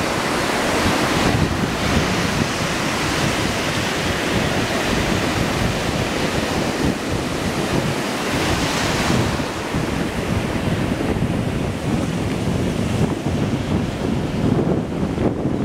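Small surf breaking and washing up a sandy beach: a steady hiss that swells now and then as waves run in, with wind buffeting the microphone.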